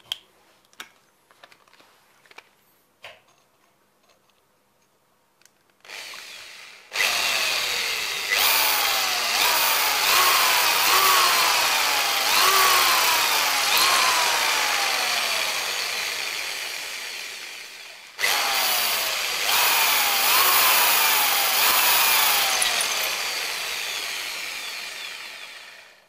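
Corded electric hand drill running at full speed into a small terracotta piece, with its pitch repeatedly falling and jumping back up. A few light handling clicks come first; the drill starts about seven seconds in, stops briefly past the middle, then runs again until just before the end.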